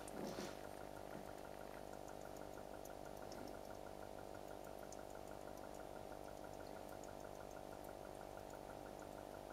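Steady electrical hum with a faint, regular pulsing a few times a second over it, and a brief knock right at the start.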